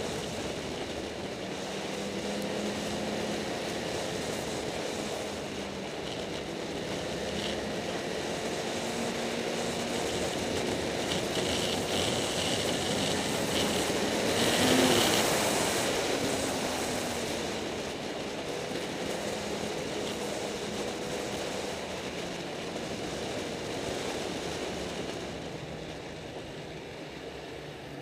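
Snowmobile engine running while riding along a trail, its pitch rising and falling with the throttle, loudest about halfway through.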